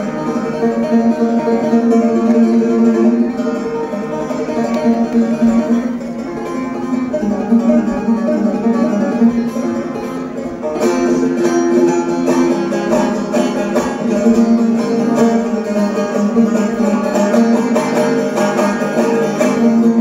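Bağlama, a long-necked Turkish saz, played solo: a plucked melody over ringing drone strings. The playing grows busier and brighter about halfway through.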